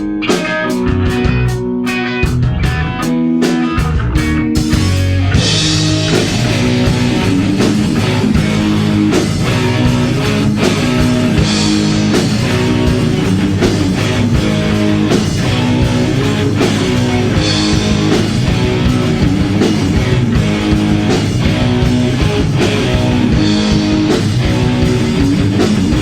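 Heavy metal band playing: a choppy, stop-start electric guitar riff, then drums and the full band come in about five seconds in and play on hard and steady.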